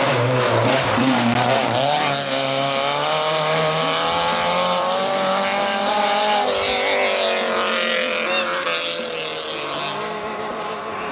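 Rally car engine revving hard as the car accelerates away, its note climbing, dropping sharply about six and a half seconds in as it shifts gear, then fading as the car moves off into the distance.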